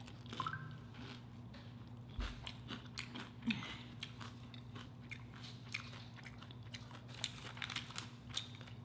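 Close-miked chewing of food, with scattered small crunches and mouth clicks over a faint steady low hum.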